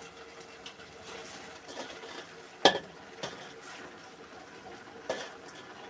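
Metal colander clinking against a steel cooking pot as canned green beans are scooped by hand into it, with soft rustling of the beans. One sharp clink comes a little before the midpoint, with two fainter knocks after it.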